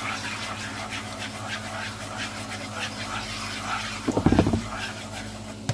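Hot frying oil with cornstarch stirred in, sizzling and crackling in a pan as chopsticks stir it, over a steady low hum. A short loud knock comes about four seconds in.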